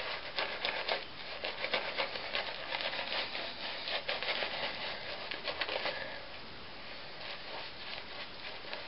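Shaving brush working shave cream lather over the face: a swishing, rubbing sound made of many rapid small clicks. It turns smoother and a little quieter about six seconds in.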